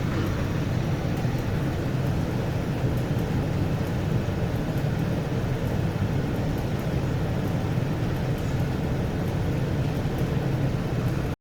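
Steady low machine hum of air-conditioning equipment running during refrigerant charging, with no distinct events.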